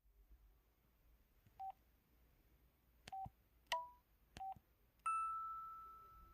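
KTF-E3300 mobile phone keypad sounds: a few short, single-pitch beeps with faint key clicks, then a click about five seconds in followed by a clear ringing tone that slowly fades out. These are the handset's button tones being previewed.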